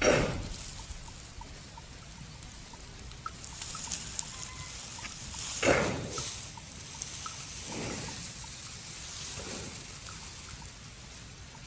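A resting buffalo chewing its cud, with wet, soft chewing and four louder rushing swells: one at the start, the loudest about halfway, and two more after it.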